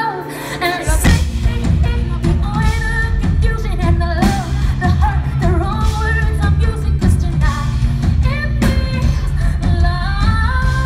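Live pop-rock song with a female lead vocal: singing over keyboard chords, with the full band's drums and bass coming in about a second in. A long held note starts near the end.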